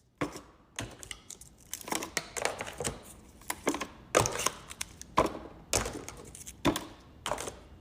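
Plastic fruit cups and their packaging being handled and set into the fridge: a string of irregular clicks and knocks with some crinkling.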